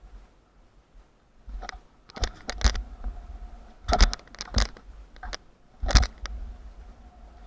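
Skateboard on concrete: a run of sharp clacks and knocks as the board and its trucks hit the ground, over a low rolling rumble. The loudest knocks come about four and six seconds in.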